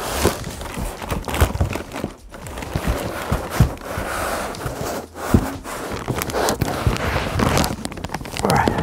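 Plastic anti-static bag crinkling and a cardboard box rubbing as a heavy boxed unit is pulled around and lifted out, with scattered knocks from the handling.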